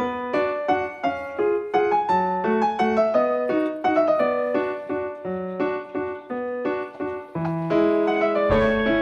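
Background music: a piano melody of single struck notes, a few per second, with a lower accompaniment that grows fuller near the end.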